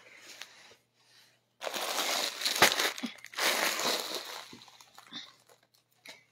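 Clear plastic packaging crinkling as clothing bundles wrapped in it are handled. It comes in two bursts, the first starting about one and a half seconds in, with a soft thump in the middle of the first as a bundle is set down.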